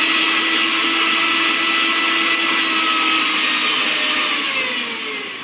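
Maharaja 1000-watt mixer grinder's copper-wound motor running at its highest of three speeds with no jar fitted: a loud, steady, high whine with no harsh noise. Near the end it is switched off and the whine falls in pitch as the motor spins down.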